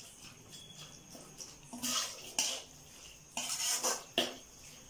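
Perforated metal spatula scraping and stirring thick masala against the sides of a metal kadai: a few short scrapes around two seconds in, and a longer run of scrapes and a sharp clink near the end.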